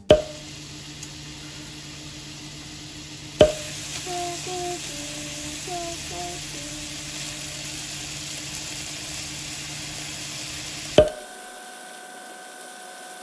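Cubes of marbled beef sizzling in a hot frying pan as they are turned with chopsticks, the beef 'singing'. Sharp clicks come about three and a half seconds in and again near the end.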